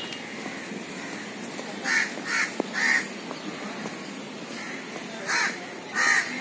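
Short bird calls: three in quick succession about two seconds in and two more near the end, over a steady outdoor background hum, with a single sharp click between the first calls.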